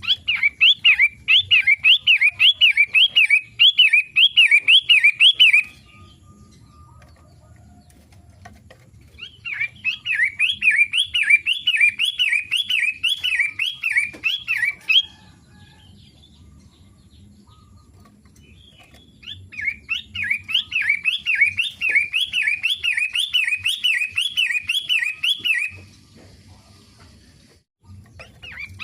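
Long-tailed shrike (pentet) singing in three bouts of about six seconds each, each a rapid run of rising-and-falling notes repeated about twice a second, with pauses of a few seconds between bouts. A fourth bout starts at the very end.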